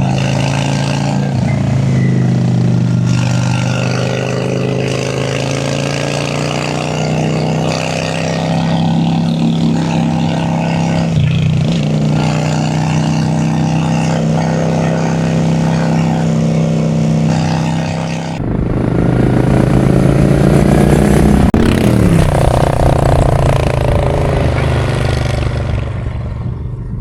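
Honda Shadow V-twin cruiser engine running on the road, its pitch rising and falling with the throttle. About two-thirds of the way through, the sound turns abruptly noisier with wind rush, and shortly after that the engine's pitch drops as it rolls off.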